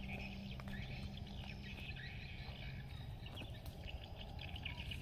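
Small birds chirping over a steady low background hum, the chirps thickest near the end.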